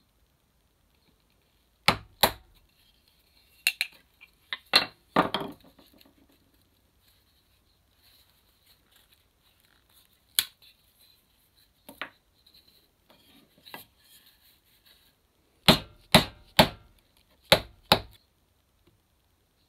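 A mallet striking a wood chisel, driving it into a softwood block in sharp knocks, mostly in twos with pauses between, and a quick run of five near the end.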